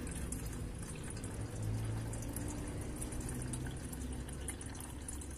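Water pouring in a thin, steady stream from a glass kettle into a stainless-steel pot, trickling and splashing on the metal bottom.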